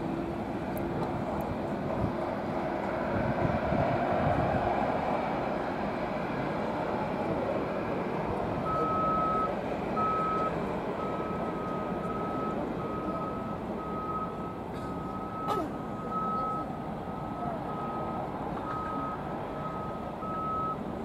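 Steady rumble of a Garuda Indonesia Airbus A330's jet engines as it rolls along the runway. From about nine seconds in, a vehicle's reversing alarm beeps evenly at roughly one and a half beeps a second.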